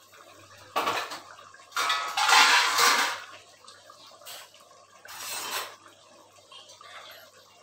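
A metal spoon scraping and clattering against a clay cooking pot of curry in three short bursts, the longest and loudest about two seconds in.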